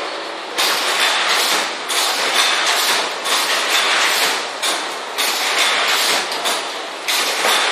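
Corrugated-box folder gluer running: a steady mechanical clatter that swells louder about every second and a quarter.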